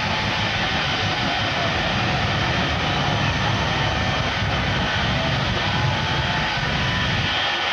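Shockwave jet truck's jet engines running at high power with afterburners flaming, a loud, steady, unbroken jet noise.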